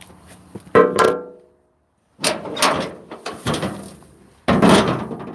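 A sharp knock that rings briefly about a second in, then a moment of dead silence, then rustling and bumping of a phone being handled, with a loud scuff against the microphone near the end.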